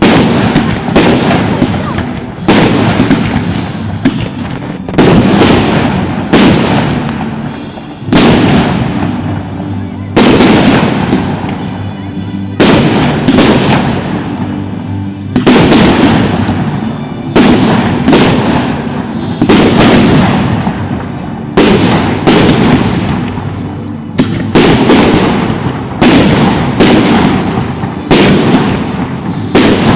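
Aerial firework shells bursting overhead in quick succession, a loud bang about every second, each followed by a rumbling echo that fades away.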